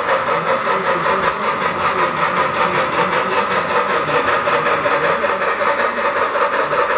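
O scale model of a Southern Pacific AC-9 2-8-8-4 articulated steam locomotive running, giving a steady, rapid rhythmic chuffing of about four to five beats a second along with its running noise on the rails.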